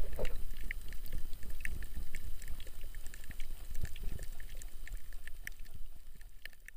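Water sound heard underwater over a shallow coral reef: a steady low rumble with many small, irregular clicks and crackles, slowly fading toward the end.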